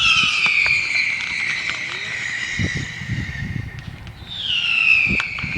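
Whistling fireworks shrieking one after another: each whistle starts high and falls in pitch before holding steady, a second one starting about four seconds in. Sharp pops and crackles come between them, the loudest near the end.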